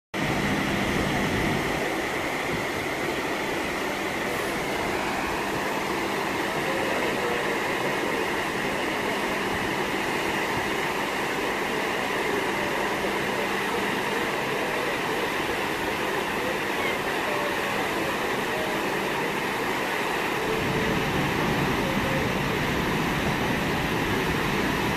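Steady rush of churning water in a cruise ship's wake, over the low rumble of the ship under way; the rumble grows a little fuller near the end.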